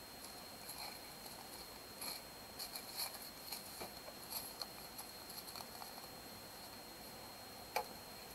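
Small plastic zip-lock bags of resin diamond painting drills being handled: faint crinkling rustles and light taps, with one sharper click near the end.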